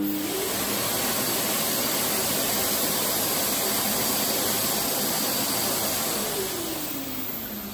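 Electric hand dryer blowing. Its motor starts abruptly with a rising whine, runs with a loud, steady rush of air, and winds down with a falling whine near the end.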